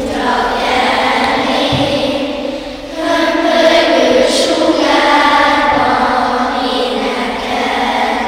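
A group of schoolchildren singing a song together in chorus, with a short break between phrases about three seconds in.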